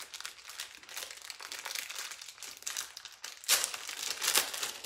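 Close rustling and crinkling made of many quick scratchy strokes, louder for a moment about three and a half seconds in.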